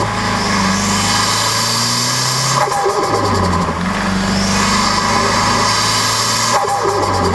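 Mazdaspeed 3's turbocharged 2.3-litre four-cylinder engine revving with the turbo spooling, then a rapid turbo flutter as the throttle closes, twice, about 2.6 and 6.6 seconds in. The flutter is compressor surge: with the blow-off valve blocked off, the boost has no vent and backs up through the turbo.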